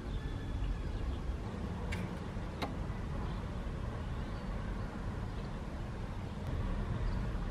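Steady low outdoor rumble, with two faint clicks about two seconds in.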